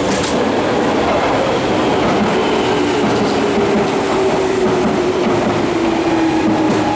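Electric train pulling in on the adjacent track over wheel and rail noise, its motor whine falling steadily in pitch as it brakes.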